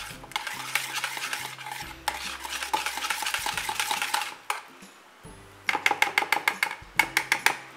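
Wire whisk beating a thick yogurt batter in a plastic bowl, the wires scraping and clicking against the bowl to work out lumps. Fast continuous strokes for about four seconds, a brief pause, then a quick rhythmic run of strokes near the end.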